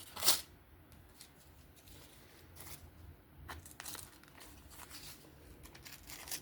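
A knife blade slicing into a single-ply paper towel: a short papery rasp a moment in, then a few fainter rustles and tears. The towel is only partly cut through.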